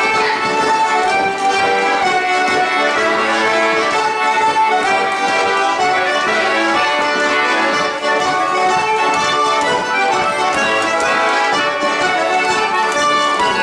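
Traditional folk dance tune played by a group of session musicians, with squeezeboxes carrying the melody.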